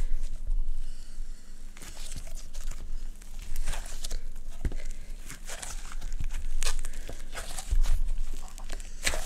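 Slime pressed and pulled across a camera lens right at the microphone, giving irregular sticky crackles and pops.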